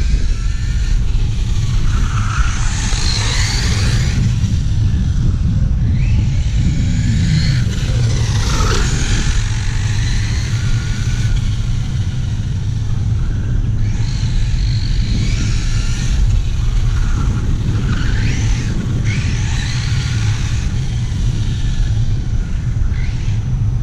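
Brushless electric motor of a 1/8-scale ZD Racing RC short-course truck on a 4S battery, whining up and down in pitch several times as it accelerates and slows. Under it is a steady low rumble.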